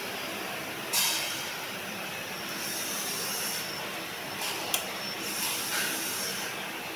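T-handle hex key working a bolt in an electric scooter's steering head: small metal scrapes about a second in and a single sharp click near the end, over a steady hiss.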